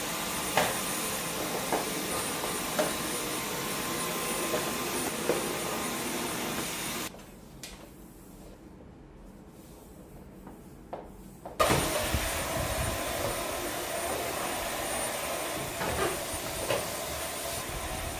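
Vacuum cleaner running with a steady high whine, with knocks as it is moved about; it stops about seven seconds in and starts again abruptly about four seconds later.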